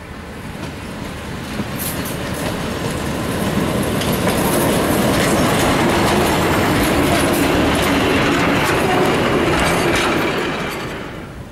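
Brill railcar No. 60 and its trailer car passing close by on the track. The running noise grows louder as the railcar approaches and is loudest while the cars go past, with repeated clicks of the wheels. It falls away quickly near the end as the trailer clears.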